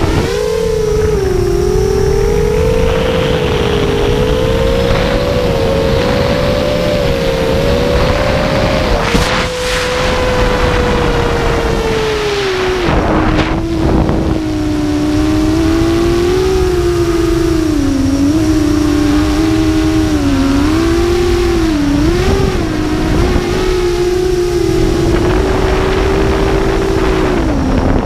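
Horizon Hobby Scimitar LRX FPV drone's electric motors and propellers whining steadily, heard from the drone's onboard camera. The pitch drifts slowly upward, drops sharply about halfway through, then wavers up and down with the throttle. Wind rushes over the microphone, with a couple of brief whooshes.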